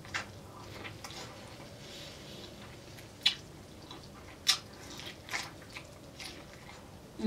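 Close-up eating of a sauce-coated corn on the cob: biting and chewing with several sharp, wet mouth smacks spaced a second or so apart.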